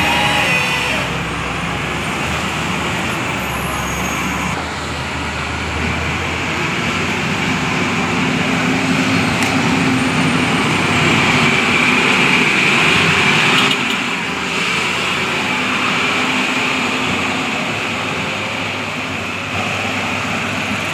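Steady vehicle noise: an engine running under a broad hiss, changing little throughout.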